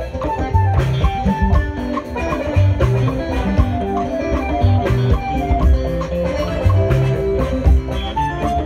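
Live band playing an instrumental gospel groove: a guitar picks a running melody over a steady beat of bass and drum kit.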